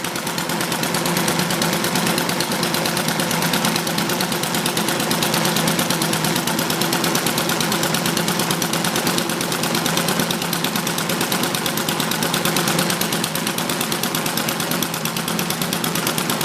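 Home-built sideshaft horizontal internal-combustion engine running steadily under its centrifugal governor, with a rapid, even firing beat. It is driving a small model sawmill through a belt, clutch and chain while the blade cuts a slab off a pine log.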